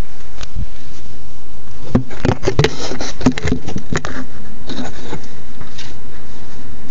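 BMW E39 528i straight-six idling roughly, a steady buzzing drone, with a cluster of irregular clicks and scrapes from about two to four seconds in.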